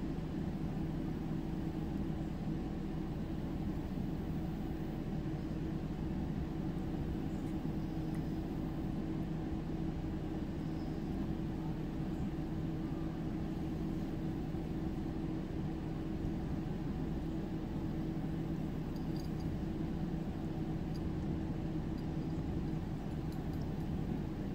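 A steady low mechanical hum at one constant pitch, like a motor or engine running without change.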